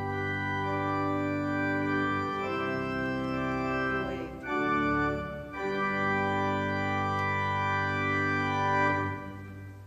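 Organ music: slow, sustained chords that change every second or two, fading out near the end.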